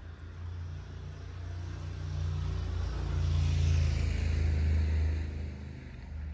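A car driving past, its low engine hum and tyre noise swelling to a peak a little past the middle and then fading.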